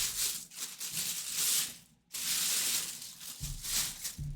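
Rustling and handling noise, with a few soft low knocks and a brief cut to silence about two seconds in.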